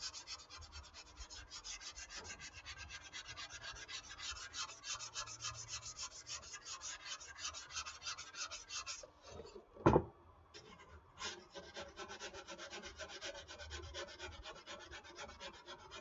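Hand sanding of dried wall spackle on a foam RC airplane wing with 220-grit sandpaper: quick, rhythmic back-and-forth rubbing strokes. About two thirds of the way in the sanding stops briefly with a single sharp knock, the loudest sound here, then the strokes start again.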